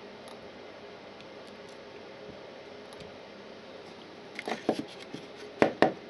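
Faint steady room hiss, then from about four and a half seconds in a handful of sharp clicks and knocks as a white plastic PIR motion sensor is picked up and handled, the loudest two near the end.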